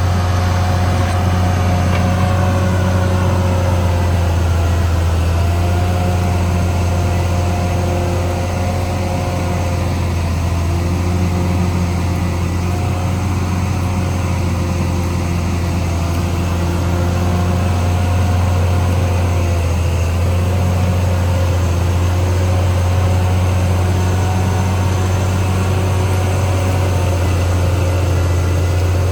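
Caterpillar D6R XL bulldozer's diesel engine running steadily, its pitch drifting slightly up and down.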